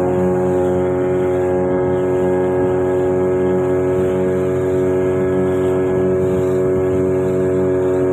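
An engine running at a steady speed: a constant hum that holds one pitch without revving or dropping.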